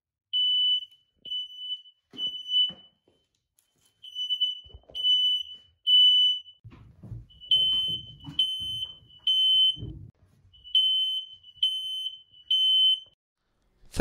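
Hardwired, interconnected smoke alarms sounding together while being tested: a high-pitched alarm tone beeping in groups of three with a pause between each group, the temporal-three alarm pattern, four groups in all, stopping about a second before the end.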